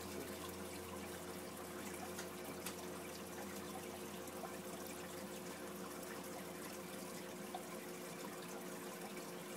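Aquarium water running and bubbling steadily from the tank's filter and air bubbles, over a constant low hum.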